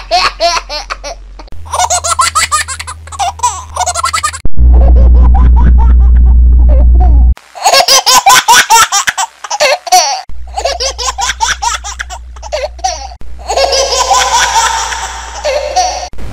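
A baby's laughing sound effect played again and again, each time put through a different audio effect: a 'monster' version, a tinny radio version and an echo version among them. Several of the versions have a steady low hum underneath, and one about four seconds in is very loud with heavy bass.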